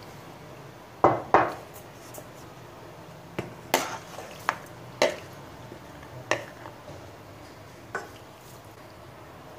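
A bowl and a wooden spoon knocking against the rim and sides of a stainless steel pot as pitted sour cherries are tipped in onto a layer of sugar: about eight sharp knocks, two close together about a second in, a cluster in the middle and a last one near the end.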